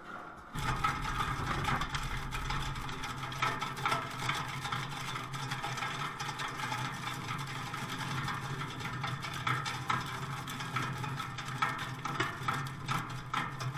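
Robust SD45 universal shredder running with a steady low hum while its rotating shaft grinds and snaps wood scraps and splinters in the hopper, with frequent sharp cracks. The shredding noise starts loudly about half a second in.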